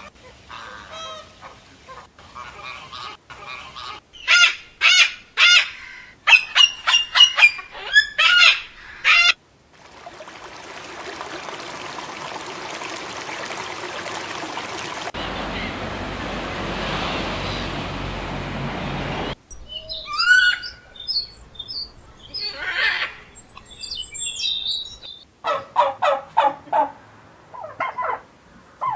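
Bird calls from a run of separate clips: quick series of short repeated calls, then about nine seconds of a steady rushing noise with no calls, then scattered chirps and calls again.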